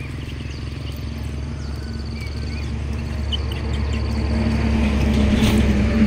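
A motor vehicle's engine, a low hum that grows steadily louder toward the end as it approaches. Insects chirp over it in short repeated trills.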